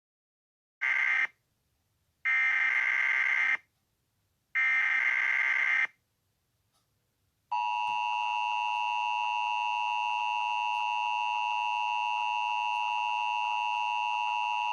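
Emergency Alert System SAME header: three short, buzzy digital data bursts. About halfway through, the steady two-tone EAS attention signal starts and holds, which marks the start of an alert broadcast.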